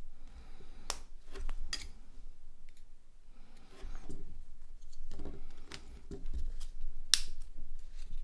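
Small plastic phone parts being handled, with a few sharp clicks and scraping and rubbing between them, as a replacement body shell is worked onto a Nokia X2-01.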